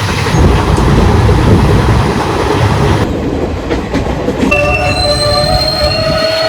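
Passenger train running with a heavy rumble and rattle. From about four and a half seconds in, the wheels squeal in steady high tones, as a train does when braking to a stop at a station.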